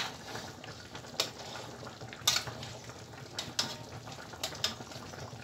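Metal spoon clinking against a metal tray every second or so as syrup is spooned over a bread dessert. Under it is a soft steady sizzle of the syrup simmering in the tray.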